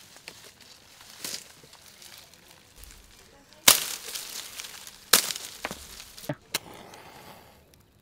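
Dry palm fronds crackling and snapping as they are handled and broken by hand: a run of sharp crackles, the loudest about three and a half and five seconds in, dying away near the end.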